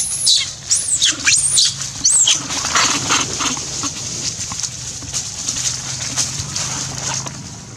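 Baby long-tailed macaque screaming in a tantrum: about four high-pitched, arching shrieks in the first two and a half seconds, then softer cries over rustling in dry leaves.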